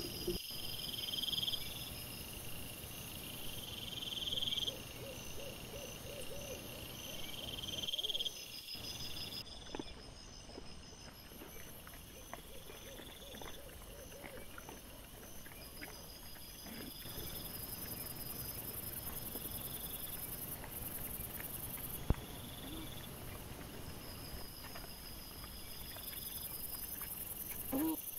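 Night insects, crickets, chirping in steady repeating pulses that break off and change abruptly a few times, over faint rustling and occasional small clicks.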